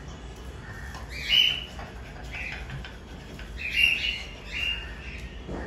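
Birds calling: short chirping squawks about four times, loudest about a second and a half in and again near four seconds in, over a low steady hum.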